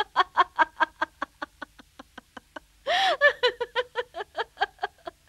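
A woman laughing in a long run of quick "ha" pulses, about seven a second, which grows louder and fuller about three seconds in.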